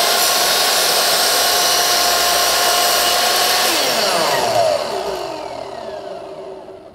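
Skil MS6305-00 10-inch dual bevel sliding miter saw, with its 15-amp motor and 40-tooth finish blade, running at full speed as it cuts through a piece of wood molding. About four seconds in the trigger is released, and the blade spins down with a falling whine that fades out over about three seconds.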